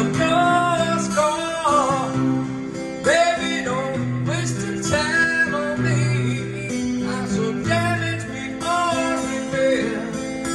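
Man singing a slow ballad while strumming an acoustic guitar, the held chords running under his voice.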